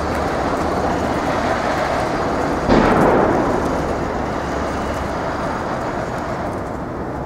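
City street traffic noise, with a sudden louder rush of noise a little under three seconds in that dies away over about a second.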